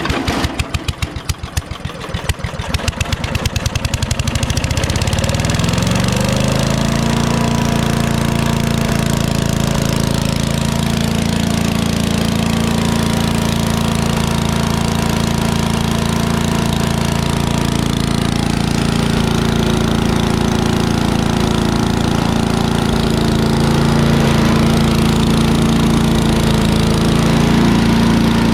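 Single-cylinder 8 hp Briggs & Stratton engine on a Craftsman chipper shredder starting on the pull cord with the choke on, after years of sitting: it fires unevenly, picks up speed over the first six seconds or so, then runs steadily.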